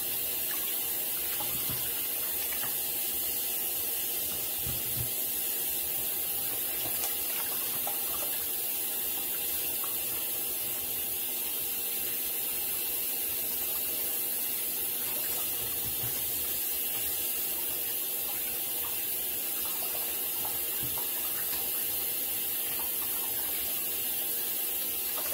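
Kitchen faucet running a steady stream into a sink, the water splashing over king crab legs held under it as they are rinsed.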